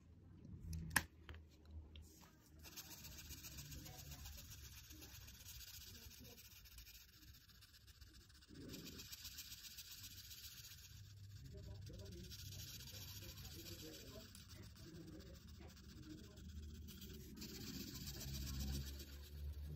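Chisel tip of a felt-tip marker rubbing across paper, colouring in with a faint scratchy hiss in runs of strokes broken by short pauses. A single sharp click about a second in.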